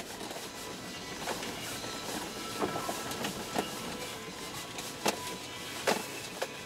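Cabin noise of a Toyota Land Cruiser 120 driving on a rough dirt track: a steady rumble of road and tyre noise with scattered sharp knocks and rattles from the bumps.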